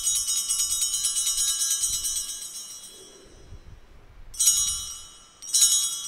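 Altar bells (a cluster of small sanctus bells) shaken in a continuous jingle that fades out about three seconds in, marking the elevation of the host at the consecration. Two short rings about a second apart follow near the end, at the priest's genuflection.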